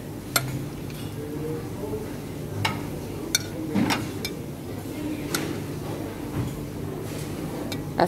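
Metal serving tongs and spoons clinking against buffet serving dishes and a plate: a handful of short, sharp clinks scattered over a low murmur of voices.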